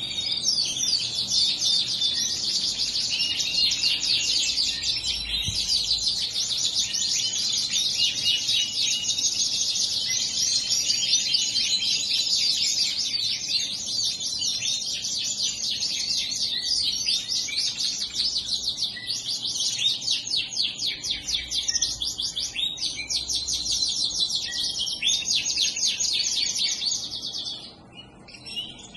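Canaries singing and chirping continuously, a dense run of rapid, high trills from several birds at once, with a short lull near the end.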